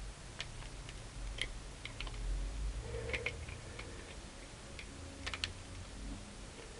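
Plastic tiles of a Rubik's Magic folding puzzle clicking and tapping irregularly as it is flipped and folded through a solve.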